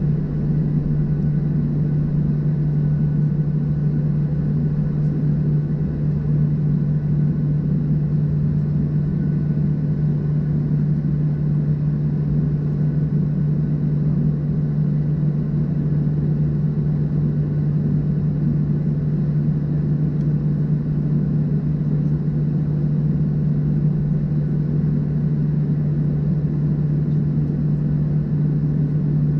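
Cabin noise inside a Boeing 737-700 taxiing on its CFM56 engines: a steady drone and rumble with a strong, constant low hum.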